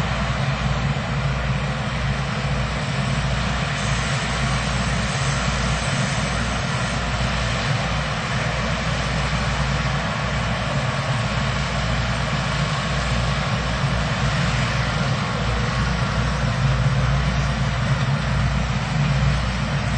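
Rice combine harvester from the Samroeng workshop running steadily: a low engine drone under a broad, even rushing noise, getting a little louder near the end.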